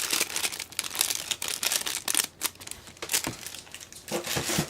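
Packaging being handled and crinkled by hand: a quick, irregular string of crackly rustles as small craft birds are rummaged out of a box.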